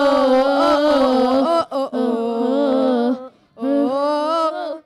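A small group of young voices singing a gospel song, holding long notes, with short breaks about a second and a half in and again near three and a half seconds.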